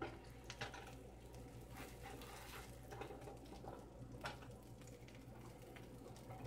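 Melted butter faintly sizzling in a skillet, with scattered light clicks and scrapes as a plastic spatula slides under the toasting sandwich to flip it.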